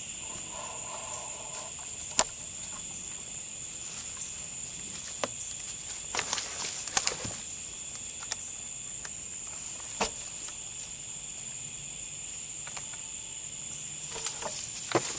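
Steady high-pitched insect trilling, typical of crickets, with scattered sharp clicks and snaps over it, a cluster of them about six to seven seconds in.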